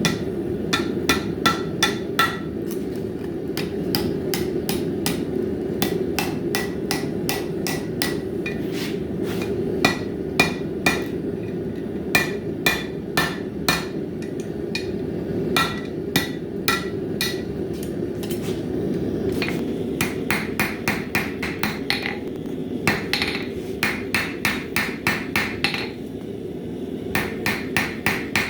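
Hand hammer forging a bar of high-carbon steel on an anvil: runs of sharp blows about two to three a second, with short pauses, each leaving a bright metallic ring. A steady low rushing noise runs underneath.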